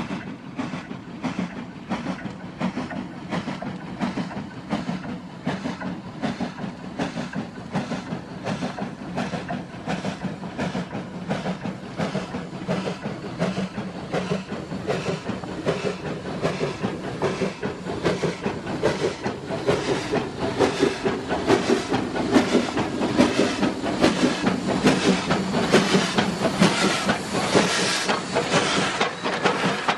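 Steam locomotive hauling a freight train, its exhaust chuffing in a steady rhythm that grows louder as it approaches and passes close by, with a rising hiss of steam near the end.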